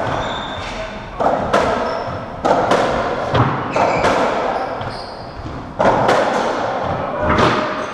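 Racketball rally on a squash court: the ball struck by rackets and smacking off the walls and floor, often two hits in quick succession, each ringing in the court's echo. Short high shoe squeaks on the wooden floor come between hits.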